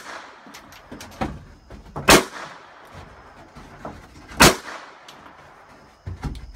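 Gunshots at a shooting range. Two loud shots come about two and a half seconds apart, each with a short echo, and fainter, more distant shots fall between them and near the end.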